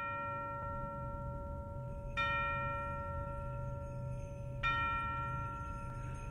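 A tuned bell struck three times, slowly and evenly, about two and a half seconds apart, each stroke ringing on and fading over a low steady drone.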